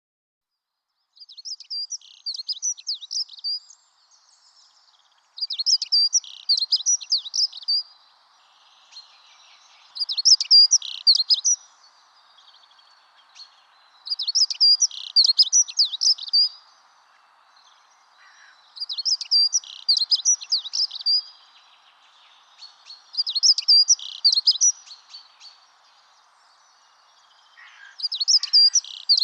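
A songbird singing the same short, high warbled phrase over and over, about every four seconds, with brief pauses between phrases.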